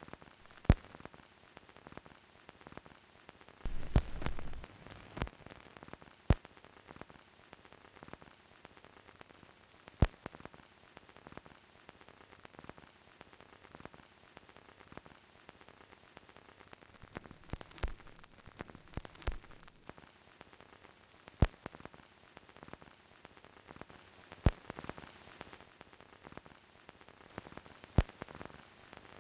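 Steady hiss with scattered sharp pops and clicks, the crackle of a worn old film soundtrack. A louder rush of noise about four seconds in lasts about a second.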